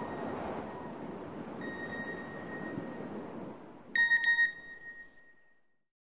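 A steady high electronic tone sounds over a noisy background and drops out briefly before coming back. About four seconds in, a loud cluster of short, bright beeps sounds and rings away.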